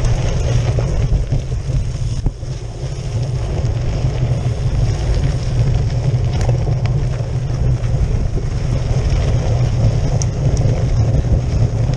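Wind noise on the microphone mixed with the tyre rumble and vibration of a cyclocross bike ridden fast over a gravel and dirt path: a steady, loud low rumble.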